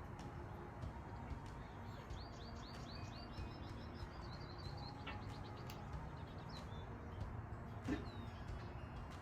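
A songbird singing a rapid run of repeated high chirps, from about two to five seconds in, over steady low outdoor background noise.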